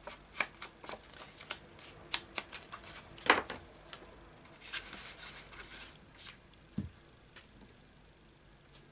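Paper and card being handled at a craft desk: a quick run of light taps and clicks, then a couple of seconds of soft rubbing and rustling, then a few scattered ticks.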